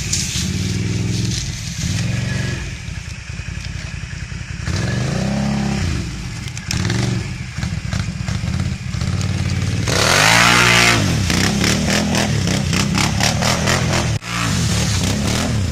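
Quad ATV engine revving in repeated bursts, rising and falling as it is driven over rough ground. About ten seconds in it revs hard with a rush of noise, followed by a few seconds of rapid clattering.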